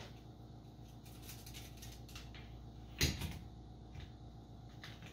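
Electric coffee grinder being handled after grinding, with faint taps and one sharp knock about three seconds in as it is set down upside down on a wooden counter.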